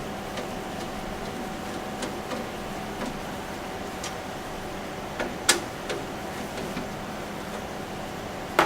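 Scattered light metallic clicks and taps over a steady hum, with a sharper knock about five and a half seconds in and another near the end: screws being put into a desktop PC case's side cover with a screwdriver.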